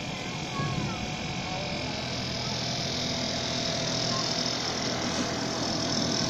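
Motor of a blue miniature ride-on locomotive on a garden railway, running steadily as it pulls a passenger train and growing gradually louder as it comes closer.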